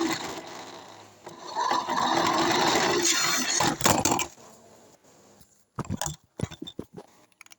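Small RC car's electric motor and drivetrain running with scraping and rattling, in two loud spells, then a string of sharp clicks and knocks near the end.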